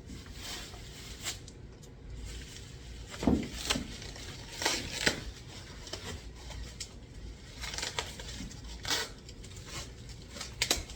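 Packaging being handled and unwrapped: intermittent rustling and crinkling with a few louder handling noises, the strongest about three seconds in.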